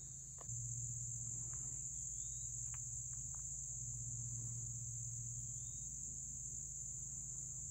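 Steady high-pitched chorus of insects, an unbroken shrill drone, over a low steady hum that gets a little louder about half a second in.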